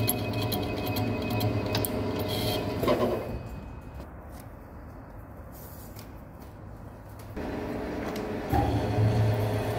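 A TM-26120G centre lathe turning a MIG-welded steel shaft down to size: a steady machine hum with a deep low drone. Three or four seconds in, the sound drops to a much quieter hum. It comes back a little before the end, with the deep drone returning last.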